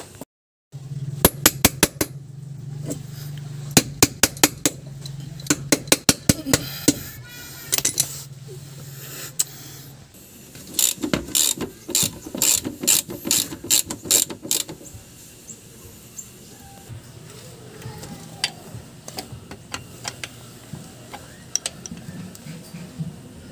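Ratchet wrench clicking in quick runs as the brake master cylinder is bolted in, over a low steady hum that stops about ten seconds in. A faster run of clicks follows, then scattered clicks.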